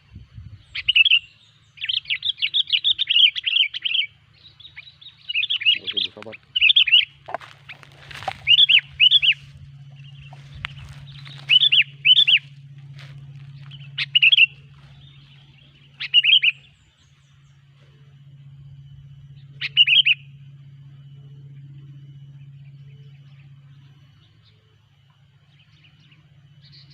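Sooty-headed bulbul calling: loud, short, bubbly phrases of a few quick notes, repeated every second or two and then more sparsely, the last about two-thirds of the way through. A low steady hum runs underneath.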